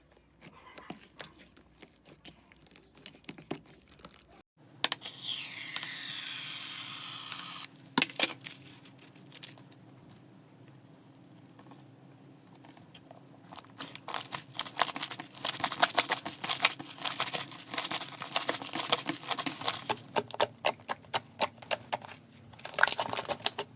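Slime being worked by hand, crinkling and crackling with many sharp little clicks. The clicks come thick and fast in the second half.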